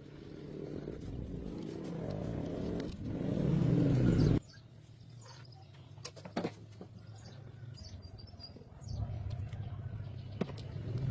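A vehicle engine running, growing louder over the first four seconds, then cut off abruptly; a quieter low engine sound follows, louder again near the end, with a few sharp clicks and faint bird chirps.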